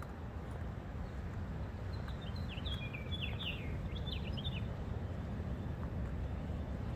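A bird sings a quick run of short, sharp, falling notes for about two seconds in the middle, over a steady low rumble.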